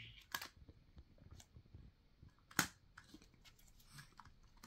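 Faint scattered clicks and rustles of a baby's toys and a board book being handled, with one sharper click about two and a half seconds in.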